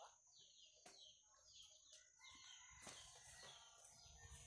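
Faint bird chirping: short, high, downward-sliding calls repeating about twice a second, with a thin steady high tone and a few sharp clicks.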